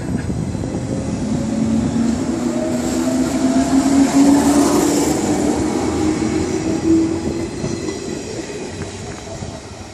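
JR 103 series electric train pulling out of a station past the listener, its traction motors whining and rising slowly in pitch as it accelerates, with a few wheel clacks over rail joints. The sound is loudest in the middle and fades near the end as the last car goes by.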